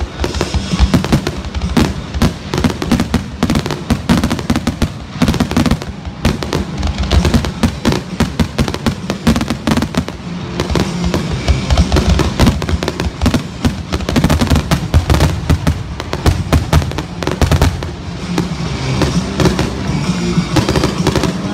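Aerial fireworks shells launching and bursting in rapid succession: a dense run of sharp bangs and crackles.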